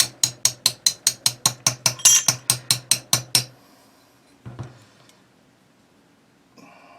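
Hammer tapping a steel pin punch to drive the trigger pin out of a TM22 rifle's trigger group: a quick, even run of sharp metallic taps, about four to five a second, that stops about halfway through. One softer knock follows a second later.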